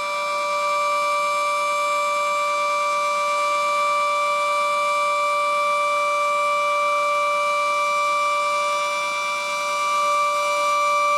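Federal Signal Model 7B outdoor warning siren sounding its steady alert signal: several pitches held together without rising or falling, with a slight dip in level about nine seconds in.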